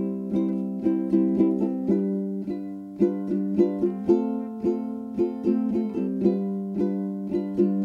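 Background music: a light, rhythmic tune on a plucked string instrument.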